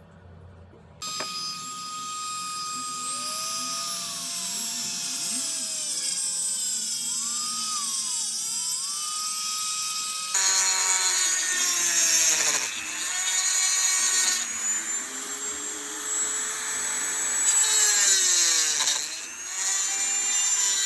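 A high-speed power tool motor whining, its pitch sagging and recovering several times as it is loaded. It starts suddenly about a second in and is louder from about halfway through.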